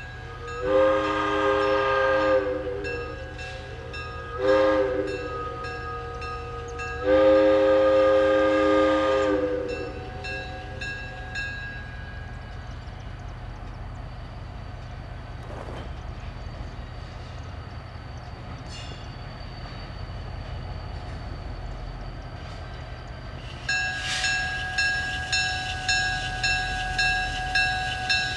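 Hancock air whistle on an EMD GP30 diesel locomotive sounding a long, a short and a long blast, the tail of the grade-crossing signal. Near the end a bell starts ringing steadily at about two strokes a second.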